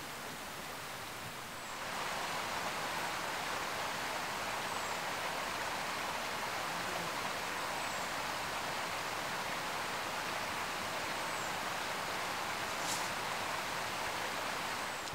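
A steady rush of running water that steps up in level about two seconds in, with a faint, high, down-slurred chirp about every three seconds.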